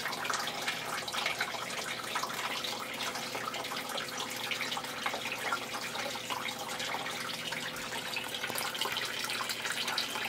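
Water trickling and splashing in a dug sump pit while a submersible sump pump, switched on by its float, runs and pumps the pit down. A faint steady tone runs under the water noise.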